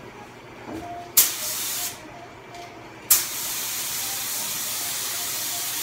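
Air-powered paint spray gun hissing as paint is sprayed: a short burst of under a second, then a long steady spray from about three seconds in. Each burst starts sharply as the trigger is pulled.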